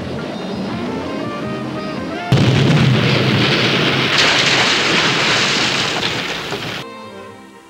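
Background music, then about two seconds in a sudden loud blast as a boat goes up in a fireball, running on as a long rush of noise that grows louder and stops abruptly near the end, where the music returns.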